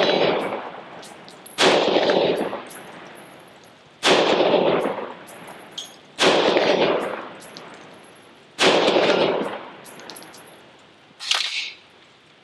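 Remington 7615 pump-action rifle in .223 firing slow single shots, about one every two and a half seconds, four in all, each followed by a long echo. The slide is worked between shots, and there is a shorter metallic clack near the end.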